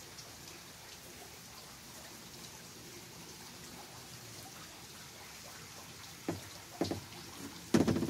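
Faint dripping and trickling water, then a few knocks in the last two seconds, the last one the loudest.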